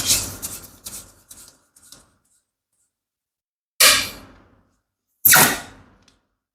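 Rubber balloons popping: a sharp pop at the start, followed by a few smaller crackles, then two more loud pops about four and five and a half seconds in.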